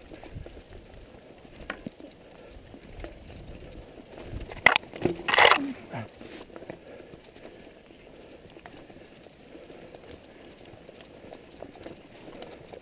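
Mountain bike rolling over a wet, muddy dirt trail: steady tyre and drivetrain noise with small rattles and clicks, and a sharp knock followed by a short loud burst of noise about five seconds in.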